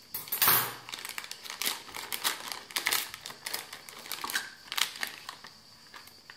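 Foil packaging bag crinkling and crackling as hands pull it open and slide a small metal box out of it, with the loudest crackle about half a second in.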